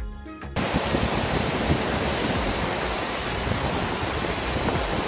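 A waterfall rushing steadily, its several streams plunging over a rock ledge onto boulders. The sound is a loud, even wash of noise. Background music stops about half a second in.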